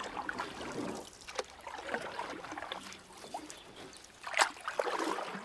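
Water sloshing and gurgling, irregular and uneven, with one louder surge about four and a half seconds in.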